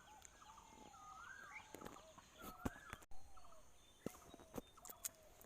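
Faint metallic clicks of a wrench tightening bolts on a motorcycle engine, a few sharp ones spaced irregularly. Birds call repeatedly in the background.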